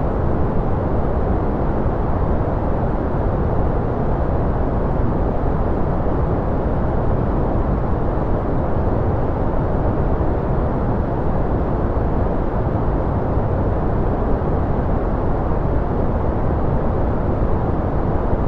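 A steady white-noise track: an even, unbroken rushing hiss that never changes, heavy in the low and middle range and dull above, so it sounds deeper and more muffled than pure white noise.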